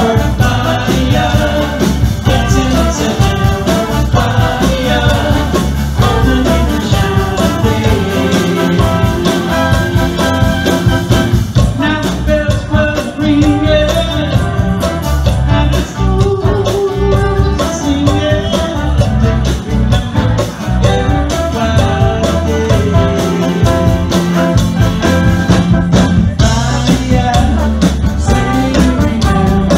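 Live band playing a song with electric bass, electric guitar, keyboard, congas, and a trombone and saxophone horn section, with a woman singing lead.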